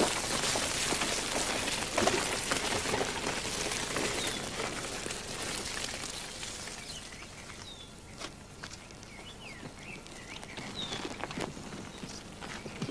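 Bicycles rolling away along a dirt path, their tyre noise slowly fading, with birds chirping now and then.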